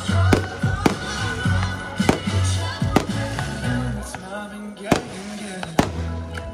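Aerial firework shells bursting, about six sharp bangs at irregular intervals, over loud music with steady bass notes.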